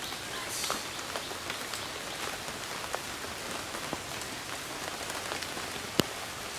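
Steady rain hiss with many small scattered drop ticks, and one sharper click near the end.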